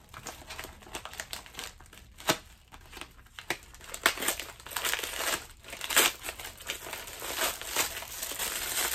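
Paper and plastic packaging crinkling and tearing as a kraft-paper mailer is torn open and its plastic-wrapped contents are handled. The crackles are irregular, sparse at first and denser and louder from about four seconds in.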